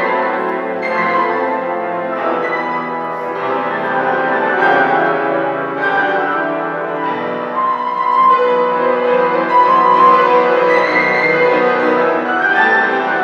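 A small ensemble of five young Suzuki students playing an instrumental piece together, with pitched notes that change about every second or so.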